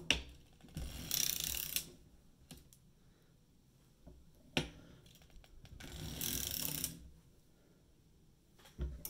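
Circular sock knitting machine cranked through short heel passes. Each pass starts with a sharp click, then about a second of mechanical rasping as the needles are knitted across. It happens twice, and a third click comes near the end.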